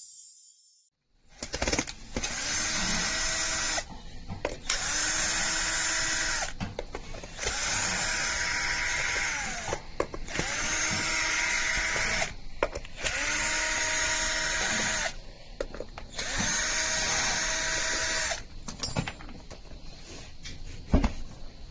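Cordless drill-driver backing out the cover screws of a one-wheel scooter's hub motor. It makes six runs of about two seconds each, and each one whines up to speed and winds down. Near the end there are quieter clicks of screws and parts being handled, and one sharp knock.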